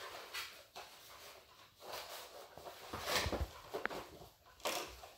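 A cardboard toy box with a clear plastic window being handled and turned over, with scattered rustles, scrapes and light knocks, the loudest about three seconds in.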